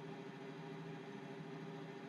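Front-loading washing machine giving a steady low hum with a faint hiss, with no tumbling or sloshing.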